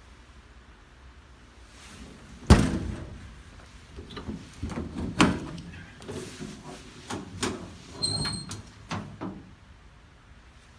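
A metal door or lid bangs shut once with a sharp, loud slam, followed by a run of smaller metal clanks and rattles and a brief high metallic ring.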